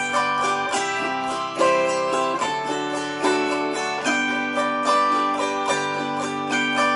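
Autoharp strummed, its chords ringing on in an instrumental passage with no singing.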